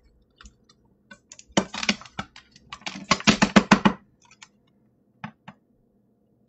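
Inverted Tupperware Stack Cooker pan knocked and jiggled against a plate in a series of quick clatters, densest between about one and a half and four seconds in, then two light taps near the end: the pan is being worked to shake the monkey bread loose.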